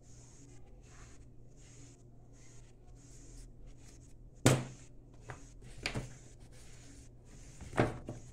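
Glue stick rubbed over paper in short hissy strokes. Three sharp knocks come about halfway through, about a second and a half later, and near the end; the first is the loudest.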